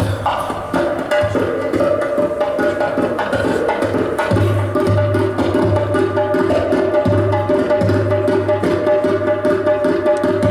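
Live folk-fusion band music: accordion and kaval melody over double bass, drum kit and hand percussion, with a long held melody note and busy, rapid percussion.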